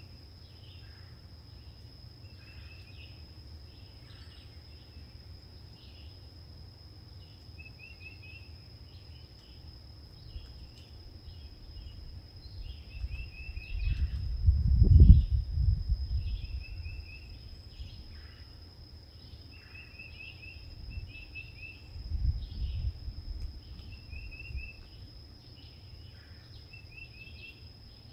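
Summer yard ambience: a steady high-pitched insect drone, with a bird calling in short repeated trills every couple of seconds. A low rumble swells and fades about halfway through and comes back more weakly later.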